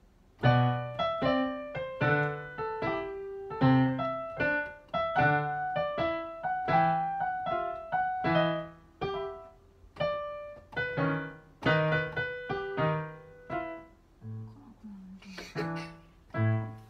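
Electronic keyboard played four hands as a duet, a march in steady chords over bass notes on the beat. It starts about half a second in and stops on a final chord near the end.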